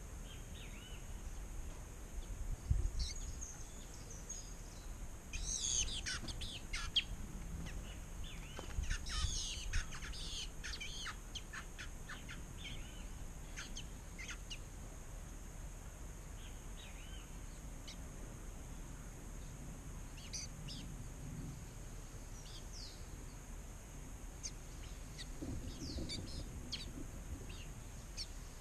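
Small songbirds giving short, high chirps and calls, busiest about six and nine to eleven seconds in and sparser afterwards, over a steady high hiss, with a couple of low thumps.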